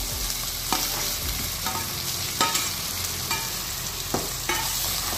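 Boiled potato cubes being tipped into a pan of frying methi masala and stirred with a metal spoon: a steady sizzle with scattered sharp clinks and scrapes of the spoon against the steel plate and pan.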